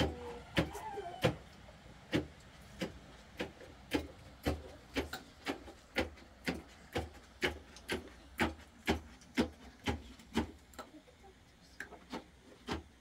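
A wooden pestle knocking steadily into a container, about two to three strikes a second, each with a short rubbing scrape, as something is pounded by hand.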